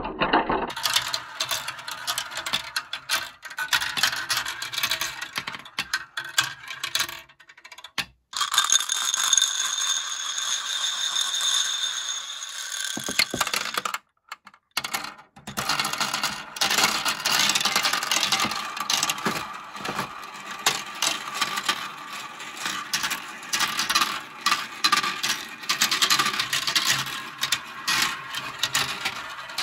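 Plastic marbles rolling and clattering down a Kumon Kumikumi Slope plastic marble run: dense, rapid clicks and rattles as they drop through tubes and roll along the tracks. About eight seconds in there is a steady high ringing whir for a few seconds. The sound breaks off twice briefly.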